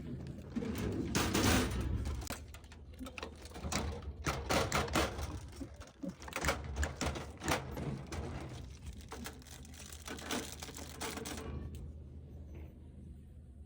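Snack packets and vending-machine parts being handled during restocking: a quick, irregular run of clicks and light knocks with crinkling plastic wrappers, which dies down about eleven and a half seconds in.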